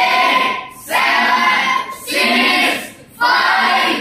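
Several voices chanting together in a repeated rhythmic phrase, about four phrases with short breaks between them.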